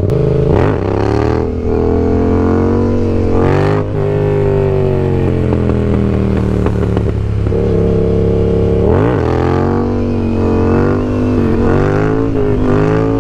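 Yamaha MT-07 parallel-twin with an aftermarket M4 exhaust, revving hard under acceleration while riding. Its pitch drops sharply and climbs again about half a second in and again around nine seconds in, with steadier pulls and dips in between.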